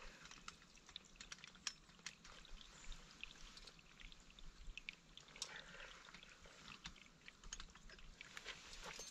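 Faint, scattered clicks and crackles of dry grass and sticks on a beaver dam being worked by hand, as a stake is pushed into it.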